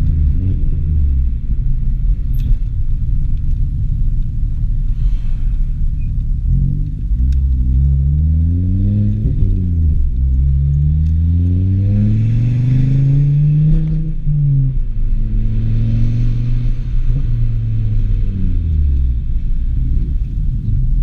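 Straight-piped, stage 2 tuned Volvo C30 T5's turbocharged five-cylinder engine, heard from inside the cabin. It drones steadily at first, then the note rises and drops sharply at a manual upshift about nine and a half seconds in. It climbs again until around fourteen seconds, holds steady, and falls away near the end.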